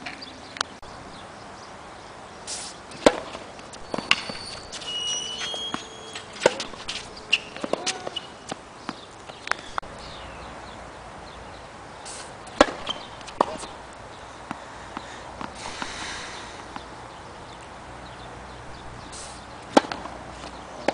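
Tennis ball struck by rackets in a rally: sharp pops a few seconds apart, with softer ball bounces and footsteps in between.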